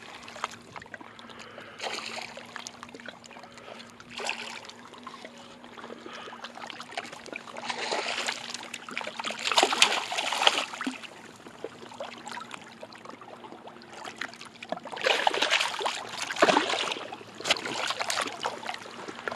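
A hooked largemouth bass thrashing and splashing at the water's surface as it is played in close to the bank, in several bursts; the loudest come about halfway through and again about three-quarters of the way through.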